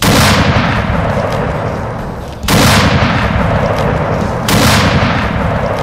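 Three shots from a Westley Richards .577 Nitro Express double rifle, about two seconds apart, each a heavy blast that rolls away in a long echo.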